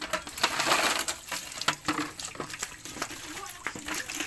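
Water and sulib freshwater clams poured from a plastic bucket into a plastic basin: a splash about half a second in, then many sharp clicks of the clam shells knocking against each other and the basin.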